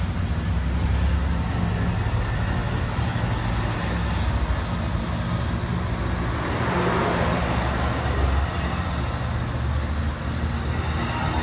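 Diesel passenger train at close range: a steady low engine rumble with a brief swell of rushing noise about seven seconds in.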